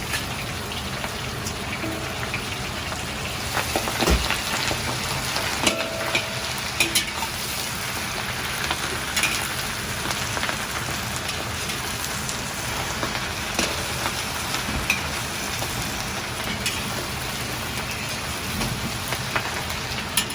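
Steady sizzling hiss from a hot wok, with scattered clicks and knocks of metal on metal.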